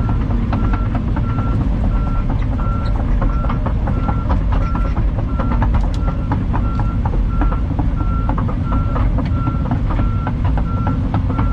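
Heavy diesel earthmoving machine running with a low steady rumble, while a back-up alarm beeps at an even pace of about one and a half beeps a second. Scattered clanks and cracks sound over it.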